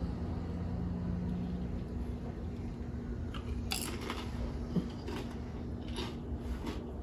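Quiet room tone with a steady low hum, and a few faint clicks and knocks about halfway through.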